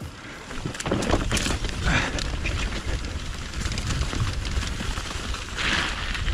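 Mountain bike rolling down a rough, wet trail: tyres rumbling and the bike rattling and knocking over bumps, with wind noise on the microphone.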